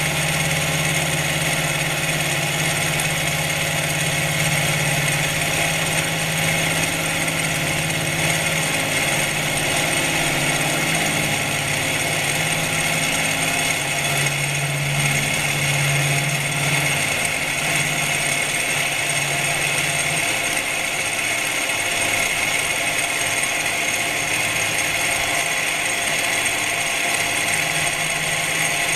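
Milling machine face-milling a metal housing pad with a 50 mm face mill: a steady machine whine with several fixed high tones over cutting noise. A lower hum wavers and fades about twenty seconds in.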